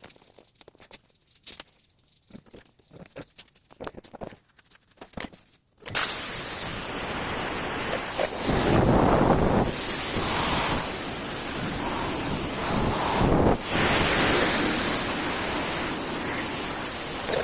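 Faint scattered clicks, then an electric radiator cooling fan that switches on abruptly about six seconds in and runs with a steady loud rush and a high whine, as the newly fitted fan is tested.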